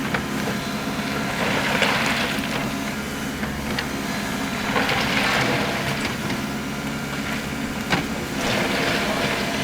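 Track hoe (excavator) engine running steadily while its bucket scrapes and drags crushed rock, with three spells of gravelly scraping and a couple of sharp knocks.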